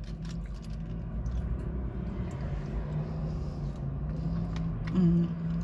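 Car engine idling inside the cabin: a steady low rumble and hum, with a brief hummed sound from a voice about five seconds in.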